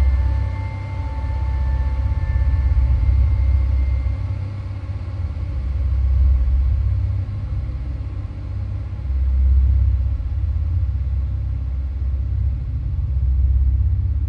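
Low rumble of a vehicle on the move, swelling and easing every few seconds.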